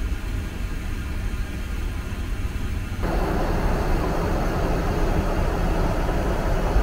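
Steady in-flight cabin noise of a Boeing 777-300ER: a low rumble under a rush of air. About three seconds in it steps up at once to a louder, hissier rush.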